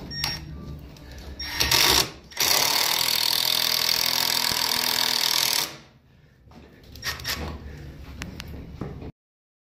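Cordless power driver driving large wood screws through a plastic switch box into a wooden door frame: a short run, then a steady run of about three seconds that stops, and another short burst a little later before the sound cuts off.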